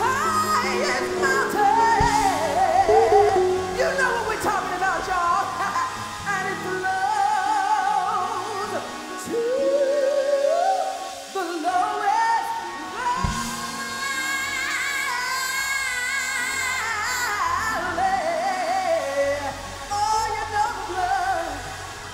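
A woman singing a gospel ad-lib into a microphone with heavy vibrato and sliding melismatic runs, without clear words, over live instrumental accompaniment.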